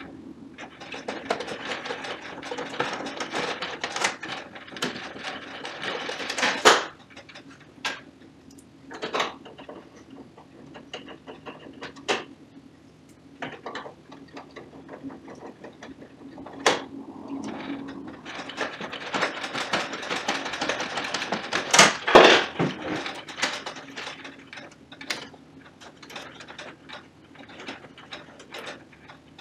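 Hands and a tool working inside an open Canon imageRUNNER 3570 copier: plastic and metal parts rattling, scraping and clicking. There are two longer spells of scraping and rattling, and single sharp clicks every few seconds between them.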